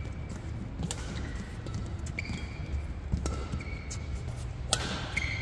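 Badminton rally: the shuttlecock is struck by rackets three times, a second or two apart, each a sharp crack with a short echo in the hall. Brief high squeaks of court shoes come between the strikes.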